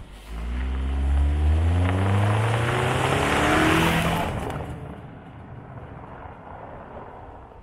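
Toyota RAV4 TRD accelerating past on a gravel road, its engine note rising in pitch as it speeds up, with tyres crunching and spraying gravel loudest as it passes about four seconds in. The sound then fades as it drives away.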